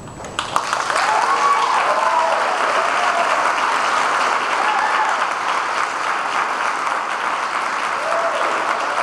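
An audience breaks into applause about half a second in, steady dense clapping with a few voices cheering over it.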